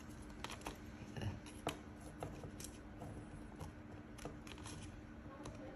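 Scissors snipping a small shape out of a sheet of white A4 paper: a series of short, unevenly spaced snips with some paper handling, over a faint steady hum.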